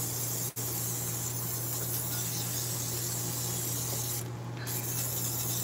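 Aerosol cooking spray hissing steadily from the can as it coats a baking pan, with a brief break about half a second in. The can is running low.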